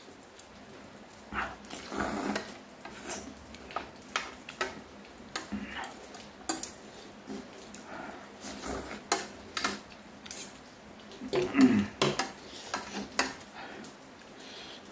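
Eating sounds: noodles slurped and chewed, with a spoon and fork clinking and scraping on a plate in many short sharp clicks. The slurping is louder about two seconds in and again near twelve seconds.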